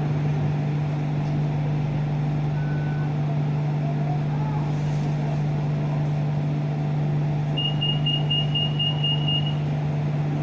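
Steady low drone of city road traffic with a constant hum. A short single tone sounds about two and a half seconds in, and a quick run of about eight short high-pitched beeps comes near the end.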